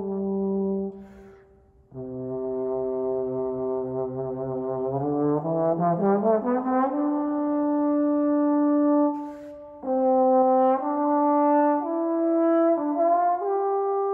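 Solo trombone playing a slow phrase: a low held note, then a smooth rising slide up to a long sustained note. After a breath, a run of shorter notes climbs higher.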